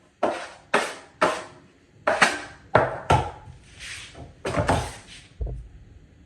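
A drywall taping knife scraping joint compound in a quick run of short strokes, about two a second.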